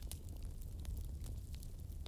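Bonfire crackling, with many short sharp pops over a low steady rumble.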